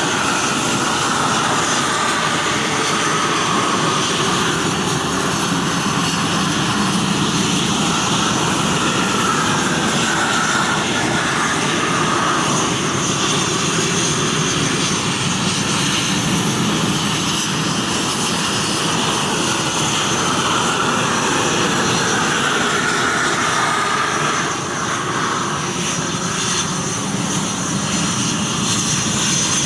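Airplane engine noise, running steadily and loudly throughout, with a pitch that slowly drifts up and down.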